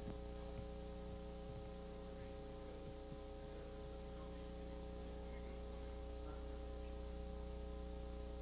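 Steady electrical hum from the sound system, low in level, made of several held tones over a faint hiss, with a small click at the start.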